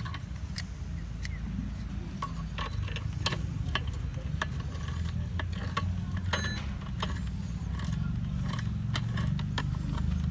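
Irregular metallic clicks and taps of pliers working the bar nuts on a chainsaw as they are tightened, over a steady low rumble.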